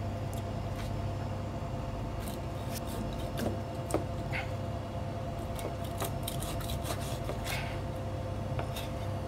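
Kitchen knife cutting raw turtle meat on a cutting board: scattered light clicks and taps of the blade against the board, over a steady background hum.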